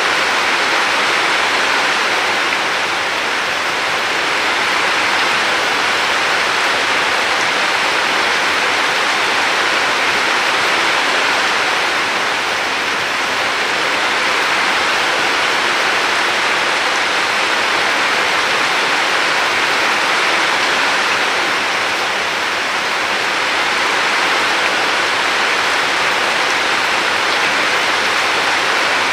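Steady rush of water: a dense, even hiss that swells and eases gently every several seconds.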